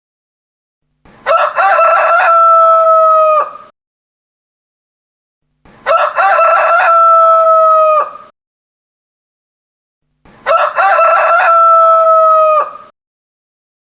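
Rooster crowing three times, each crow about two and a half seconds long and dropping in pitch at the end. The three crows look identical and come about four and a half seconds apart with dead silence between: one crow repeated in a loop.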